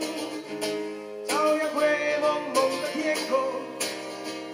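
Acoustic guitar strummed and picked in a slow accompaniment, with a strong strum about every second and a quarter and notes ringing on between them.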